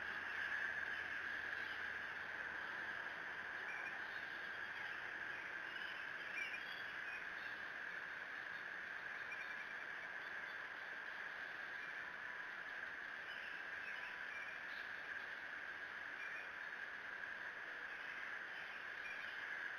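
Faint songbirds chirping and calling now and then over a steady high-pitched hiss of outdoor ambience.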